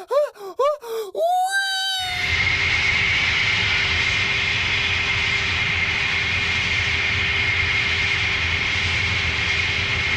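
A quick run of short, repeated whimpering cries, each rising and falling in pitch. After about two seconds they give way to a steady, loud droning noise with a constant high whine, like an engine.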